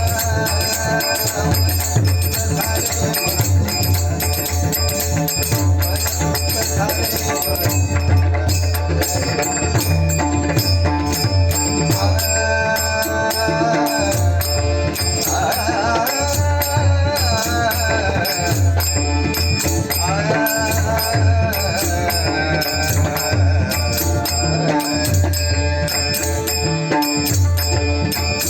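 Bhajan music in the Bhairavi style: a sung melody with chorus over continuous rhythmic percussion and a steady low accompaniment.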